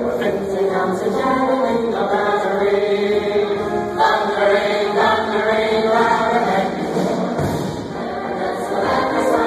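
A large mixed choir singing held chords, moving to a new chord about every second, with a short dip in loudness near the end.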